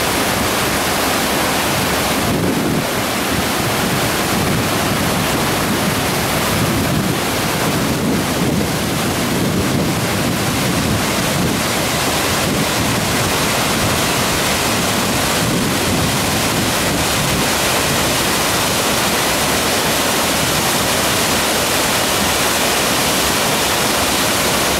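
Steady roar of Skútafoss waterfall, water crashing down without a break, with some wind buffeting the microphone.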